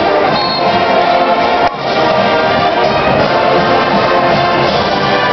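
Brass-led band music with held horn chords.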